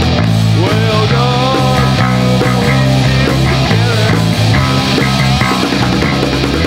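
A rock trio playing live: electric guitar and electric bass through amplifiers, with drums, at a loud, steady level.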